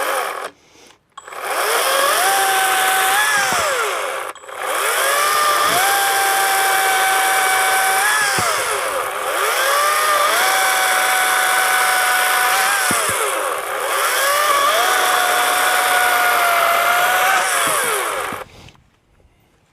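Harbor Freight Atlas cordless brushless chainsaw running in four long bursts, its motor whine rising as it spins up and falling away as the trigger is released. It is running on a fresh, fully charged battery after the first battery kept shutting the saw down.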